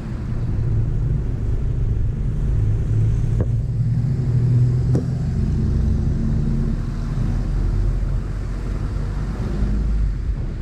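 Steady low rumble of a road vehicle's engine and road noise while moving.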